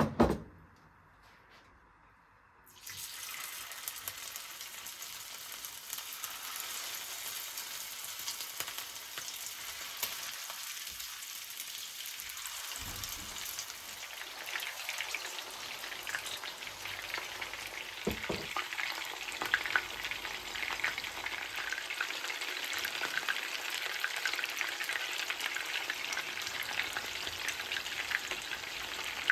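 A short knock, then about three seconds in food starts sizzling in hot oil in a pan, a dense steady crackle that carries on throughout.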